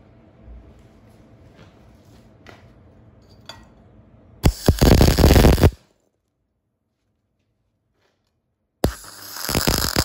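MIG (GMAW) welding arc crackling as a galvanized steel tube is welded to a steel plate with the zinc coating left on, unprepared. It comes in two bursts: one of about a second and a half, about four seconds in, and another starting near the end, with a few faint clicks before the first.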